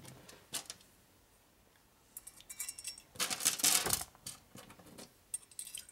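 Small steel hardware, acorn nuts and washers, clinking and jingling as it is handled and fitted onto studs: scattered light clicks, with a denser rattle of metal pieces about three to four seconds in.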